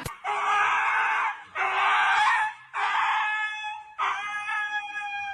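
A dog letting out four long, high-pitched cries in a row, each about a second long with a short pause between.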